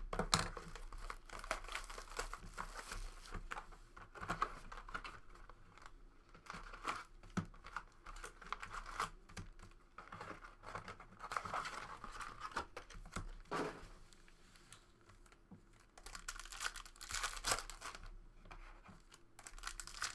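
A box of trading cards being opened by hand: plastic wrapping and foil card packs ripping and crinkling in a continuous, uneven rustle with many small crackles.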